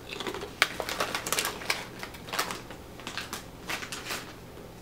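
Close-up crunching of a Beanitos black bean chip being chewed: a run of irregular crisp crunches.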